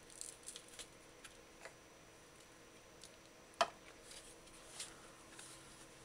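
Faint scattered clicks and taps of a kitchen knife and a foam food tray being handled on a countertop, with one sharper click a little past halfway.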